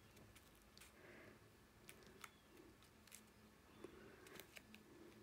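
Near silence, with faint scattered clicks and soft rustling as fingertips press and rub a glued paper label onto a card notebook cover.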